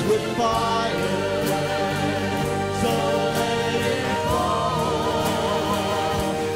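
Live worship band playing: several voices singing together over keyboard, acoustic guitar, bass and drums, with a steady light cymbal beat.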